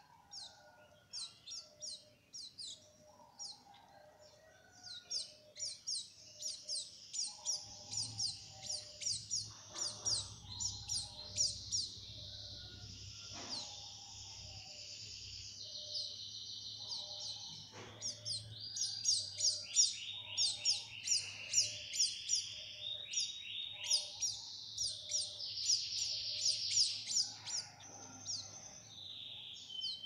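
Canaries calling: rapid high chirps, several a second, with fast trilled runs, getting louder after the first few seconds.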